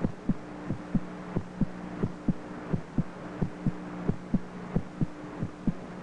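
Human heartbeat at a normal resting rate: paired lub-dub thumps, a little under 90 beats a minute, with a steady low hum underneath.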